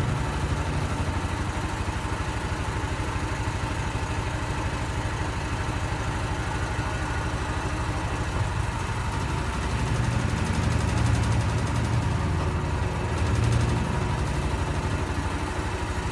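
Brastemp washing machine running with a steady low hum and a fast, even rattle that swells a few times: the abnormal noise the machine is reported for.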